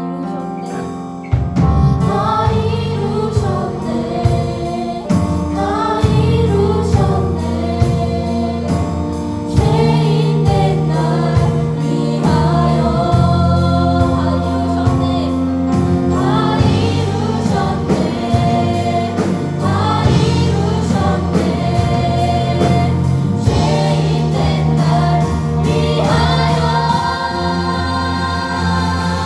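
Church choir singing a praise song to a live band, with held bass notes and a steady beat; the full band and voices come in about a second in.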